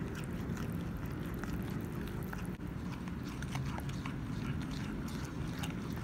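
Whisk stirring flour and cocoa into a liquid batter in a glass bowl: a steady churning with scattered faint clicks of the whisk against the glass.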